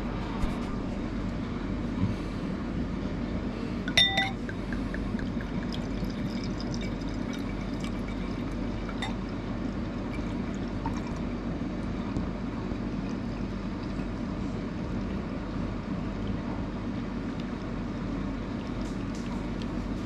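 Beer being poured from a glass bottle into a stemmed glass, with one sharp, ringing clink of glass about four seconds in.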